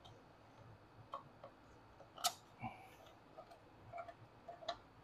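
A knife blade scraping along the edges of a 3D-printed PLA insert to trim off sharp edges: a scatter of faint, irregular clicks and short scrapes, the loudest about two seconds in.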